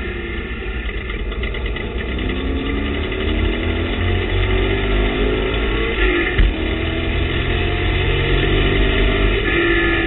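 TVR Tuscan race car engine heard from inside the cockpit, pulling hard with its note rising under acceleration. About six seconds in the note breaks with a short jolt, as at a gear change, then climbs again.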